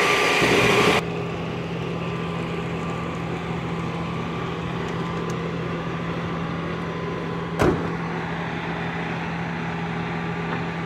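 Water from a fire hose hissing onto a smouldering wreck for about a second, then a steady low vehicle engine hum, with a single sharp knock about two thirds of the way through.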